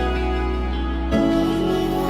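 Background music: slow, sustained synth chords, changing chord about a second in.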